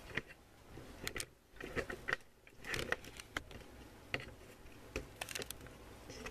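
Irregular light clicks and knocks of handling as the camera on its stand is picked up and moved back from the workbench.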